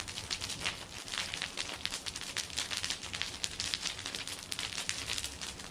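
Wood bonfire crackling and popping steadily, a dense run of sharp irregular snaps.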